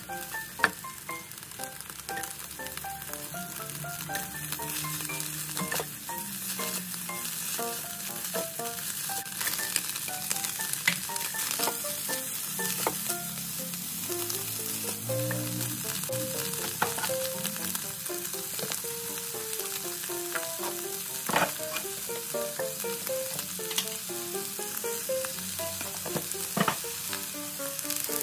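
Vegetables stir-frying in a pan, the oil sizzling steadily, with a utensil clicking against the pan now and then. Background music plays underneath.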